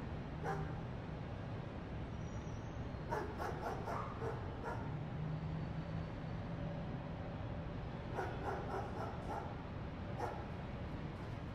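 A dog barking in short runs of barks, over a steady low rumble.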